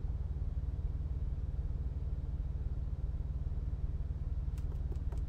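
Steady low machine hum inside a truck's sleeper cab, with a few faint light clicks near the end.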